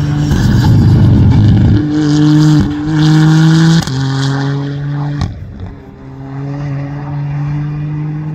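Rally car engines running hard at high revs, the engine note holding steady and then jumping to a new pitch several times as the car shifts gear, with a rougher, noisier burst about a second in.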